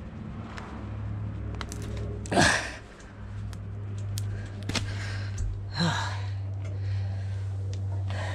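Two strained, breathy grunts from a man, the first about two and a half seconds in and the second near six seconds in, as he forces a T-handle tyre repair tool into a puncture in a motorcycle rear tyre, with a few small clicks from the tool over a steady low hum.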